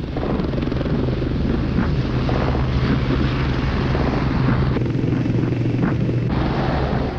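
Westland 30 helicopter landing close by, with a Lynx hovering near it: steady rotor and turbine noise over a strong low hum.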